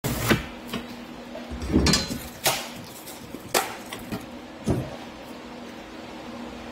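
Several sharp, irregular knocks and taps from a hammer and pieces of board being handled on a workbench, fading out after about five seconds, over the steady hum of electric fans.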